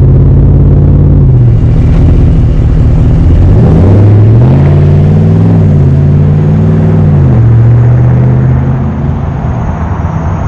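Ram 1500 exhaust through an aftermarket Totalflow 314633 muffler, the engine idling with a steady low drone, then revved once about four seconds in, held briefly, and dropping back to idle near the three-quarter mark.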